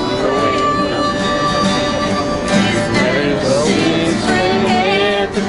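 A man singing a country song while strumming an acoustic guitar.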